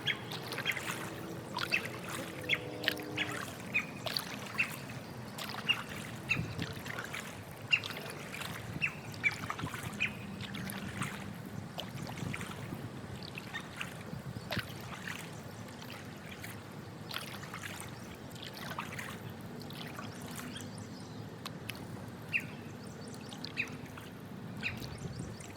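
Water trickling and dripping, with light lapping around an inflatable paddleboard on a pond, punctuated by many short, sharp high clicks.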